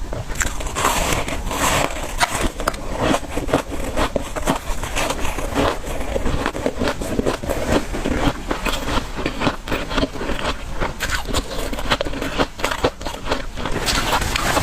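Close-miked chewing of powdery, refrozen freezer-frost ice: a continuous run of crisp crunches and crackles.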